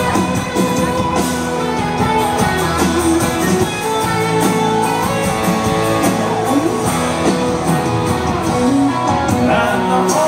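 Live country band playing loudly: guitars over a full band, with a singing voice.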